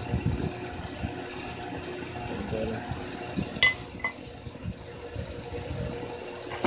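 Bench grinder with a thin disc running steadily, a high steady whine over a low hum, while the cut end of a refrigerant line is held to the disc to take off its sharp edges. A sharp click about three and a half seconds in, and a smaller one half a second later.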